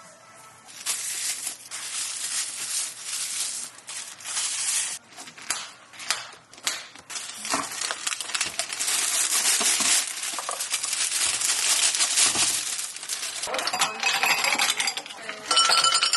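Café drink-making noises behind the counter: a loud rushing hiss that comes in uneven bursts, followed near the end by light clinks of glass and metal.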